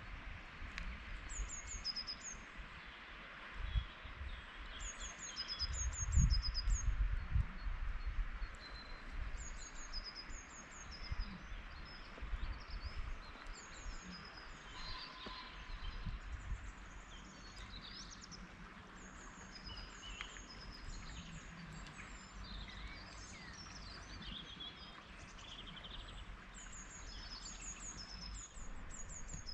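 Small songbirds singing: short high phrases of three or four quick notes, repeated every couple of seconds, over a steady background hiss.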